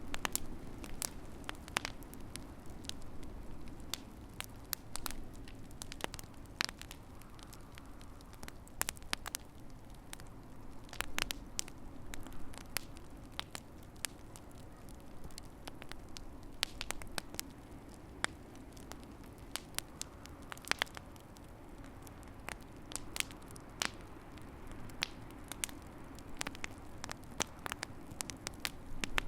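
Wood fire in a fireplace crackling, with irregular sharp pops and snaps, some clustered and some spaced a second or more apart, over a steady low hum.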